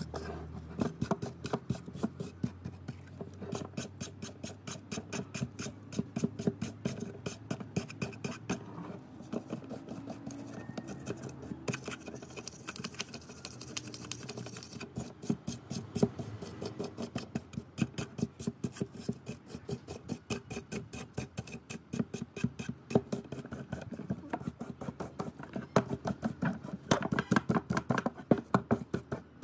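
Hand-tool work on the rusted metal of an old hand drill: a quick, uneven run of short strokes, several a second, with a few louder ones near the end.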